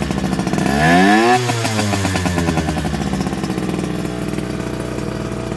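Yamaha RZ50's 50 cc two-stroke single, breathing through a BEET expansion chamber and a Mikuni flat 24 mm carburettor, idling and then given one quick throttle blip. The revs climb for under a second, snap back to idle, and it settles into a steady idle.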